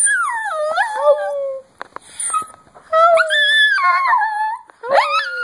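Small long-haired dog howling: three long, wavering howls whose pitch slides up and down, with short breaks between them.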